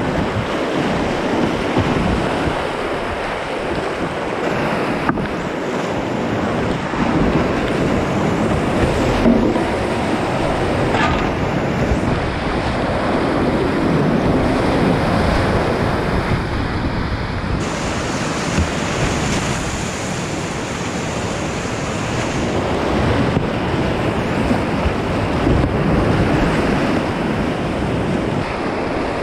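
Rushing whitewater of a flooded river heard from a kayak running the rapids: a steady roar of churning water with a few splashes and knocks against the boat and camera.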